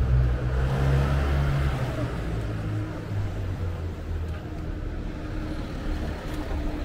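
A motor vehicle's engine passing close by, loudest in the first couple of seconds and then fading into steady street noise.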